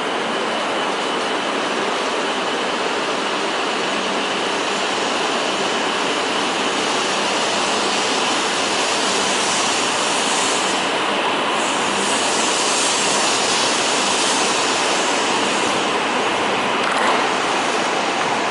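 E5-series Shinkansen train moving slowly along the platform: a steady rushing noise with a thin, high, steady whine over it.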